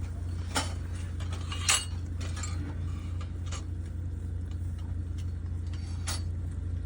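A vehicle engine running steadily, with a few sharp metallic clinks and knocks over it, the loudest nearly two seconds in.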